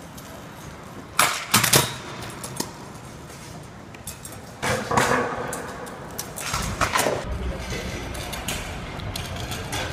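Stunt scooter wheels rolling on a concrete floor, broken by sharp clacks and knocks of the scooter's deck and bars hitting the ground, about four sets in all.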